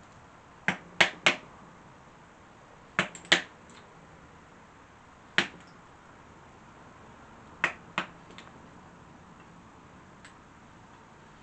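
Sharp woody cracks as a piece of fatwood is split into small chunks: three quick cracks about a second in, two more around three seconds, one at five, a pair near eight, and a faint one near the end.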